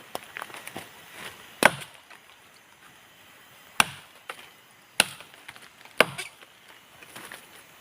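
Blade chopping into a woody vine, the akar zambrut: four hard strokes one to two seconds apart, with lighter knocks and taps between them.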